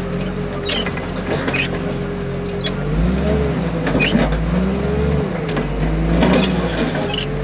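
Heavy wheel loader's engine running and revving up twice as it works its arms, with a hydraulic whine that rises and falls and a few sharp metal clanks.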